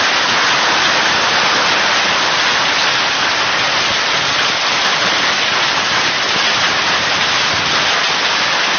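Hailstorm: hail and rain pelting down in a dense, steady hiss.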